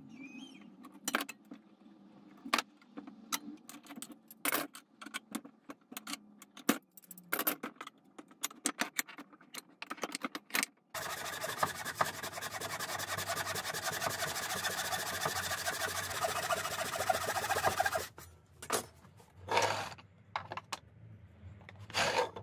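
Scattered clicks and knocks of tools being handled, then a Japanese-style pull saw cutting through a hardwood block in a vise: rapid, steady strokes for about seven seconds. A few more short, loud scraping bursts come near the end.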